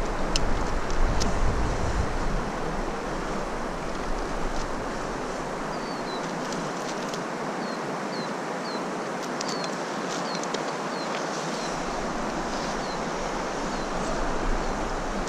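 Steady rush of flowing river water, with wind buffeting the microphone for the first few seconds and again near the end. A few light clicks and short high chirps sit over it.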